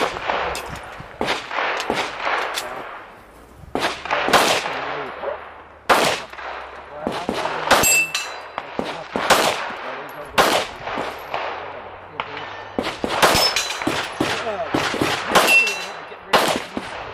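Pistol shots fired at close range in quick strings with short pauses during a USPSA course of fire. Steel targets ring after some hits, about halfway through and again near the end.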